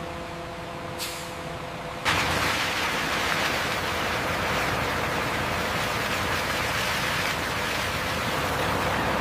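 Concrete mixer trucks idling with a steady hum, with a brief hiss about a second in. About two seconds in this gives way to a loud, steady rush of wet concrete pouring down a mixer truck's chute.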